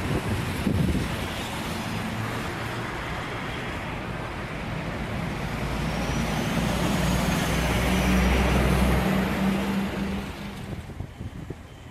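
Busy road traffic close by: cars and trucks driving past, with a heavy engine's drone growing louder through the middle and fading near the end.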